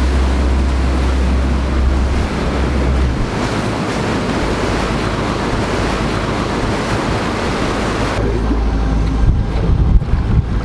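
Fishing boat running on open water: a steady rush of water and wind buffeting the microphone, with a deep low rumble that drops away about three seconds in.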